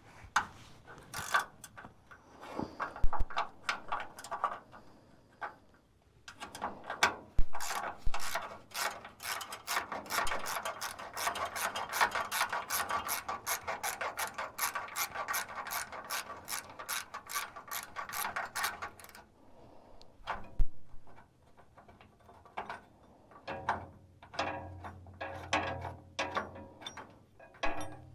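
Hand ratchet wrench clicking in runs of fast strokes, working fasteners loose on a truck frame. There is a long unbroken run through the middle, a short pause, then more clicking near the end.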